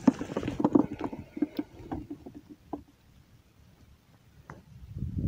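Dry reeds, twigs and jacket fabric rustling and cracking in a dense run of small clicks and knocks as the angler moves in the reed bed. It dies away about three seconds in, leaving only a few faint ticks.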